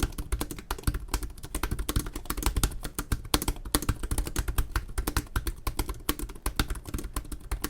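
Typing on an early-2017 HP Spectre x360 laptop keyboard: a quick, unbroken stream of key clicks and taps.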